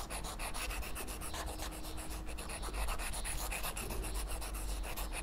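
Stylus tip scribbling back and forth on an iPad screen fitted with a paper-like matte screen protector: a dry scratching of many quick strokes a second, like pencil on sketch paper.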